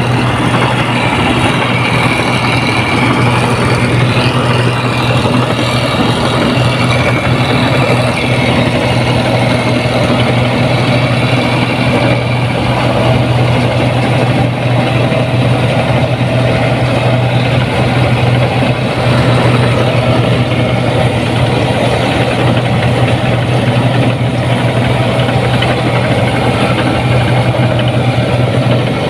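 Rice combine harvester's diesel engine running steadily and loudly, with a constant low hum and no change in speed.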